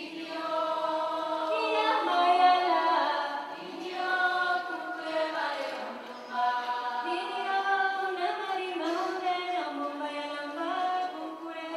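A group of voices singing together unaccompanied, in held notes with short breaks between phrases.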